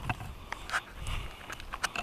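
Footsteps on a rocky, gravelly trail: a few irregular crunches and sharp clicks of shoes on loose stones.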